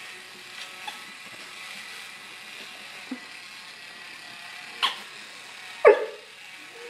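Black Labrador puppy giving one short bark about six seconds in, after a sharp click a second earlier.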